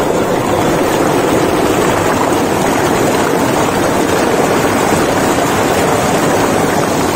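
River water rushing hard between boulders through a small rapid, loud and steady, with the microphone close to the white water.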